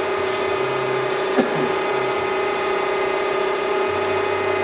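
Okamoto ACC-1224DX automatic surface grinder running with a steady machine hum, with a single sharp click about a second and a half in.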